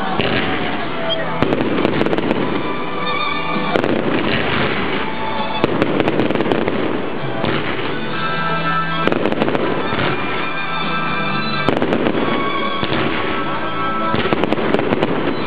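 Fireworks display: aerial shells bursting in a run of sharp bangs scattered through the whole stretch, with music playing steadily underneath.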